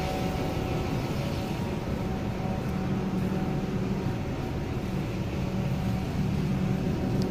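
Steady hum of a building's air-conditioning or ventilation system, with a low held tone.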